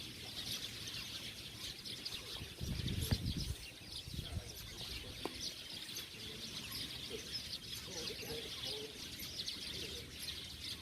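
A dense chorus of many small birds chirping continuously without a break. A brief low rumble comes about three seconds in.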